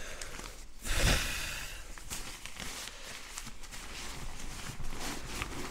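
Nylon pump sack being swung open to catch air, a loud fabric whoosh about a second in, then crinkling and rustling as it is gathered shut and squeezed to push air into a Therm-A-Rest NeoAir XTherm Max sleeping pad.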